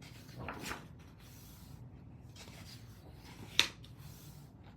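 Soft rustle of paper handling, then a single sharp click about three and a half seconds in.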